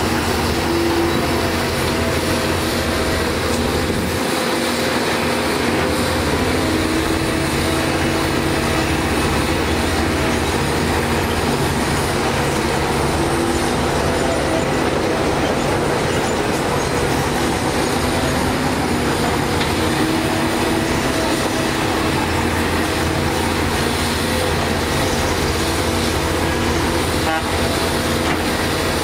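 A Kobelco hydraulic excavator's diesel engine working steadily under load, its tone shifting now and then as the boom swings and dumps dirt into a dump truck.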